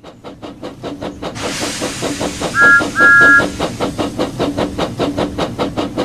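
Steam locomotive chuffing in a quick, steady rhythm, with a hiss of steam starting about a second in. Two loud two-note whistle blasts come near the middle, the second longer than the first.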